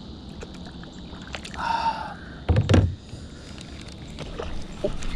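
Clicks and knocks of fishing gear being handled in a kayak, with one heavy low thump about two and a half seconds in and a short high-pitched tone just before it.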